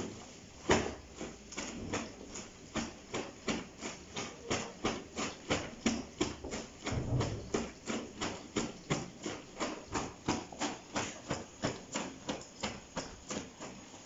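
Wet, soapy clothes being scrubbed and pounded by hand on a stone washing slab: a steady run of wet slapping strokes, about three or four a second.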